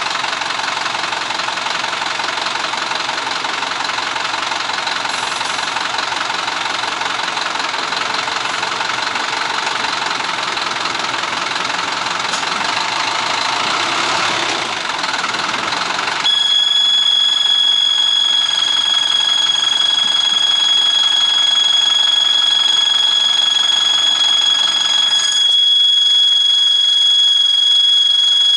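Engine running steadily just after starting. About 16 seconds in, a steady high-pitched electronic warning tone starts suddenly and keeps sounding over it.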